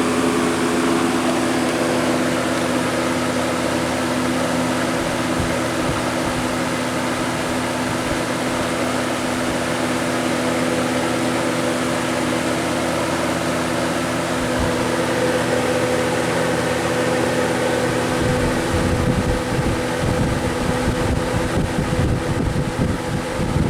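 Lakewood 20-inch box fan, model 200, running on its high speed: a steady motor hum over the rush of air from the blades. From about three-quarters of the way through, a low, uneven rumble joins it.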